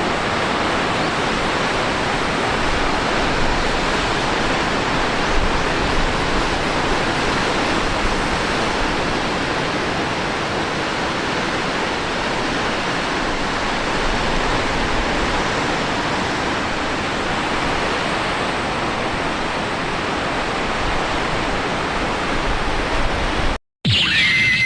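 Typhoon-driven storm surf and wind: a steady, dense roar of breaking waves that cuts off abruptly near the end, followed by a brief whistling sound effect.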